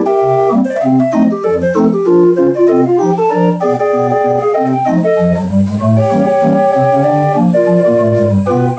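Homemade pipe organ with a single rank of 8 ft stopped wooden gedackt pipes playing a ragtime tune, a line of bass notes under a quick melody.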